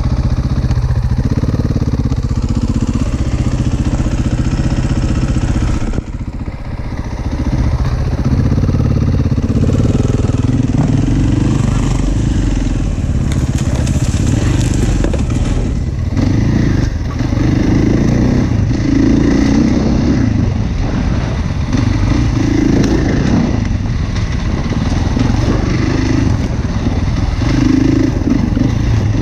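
Enduro motorcycle engine running under the rider, with a brief drop in revs about six seconds in and then repeated rises and falls in revs every second or two on the dirt trail. A light clatter from the bike runs under the engine.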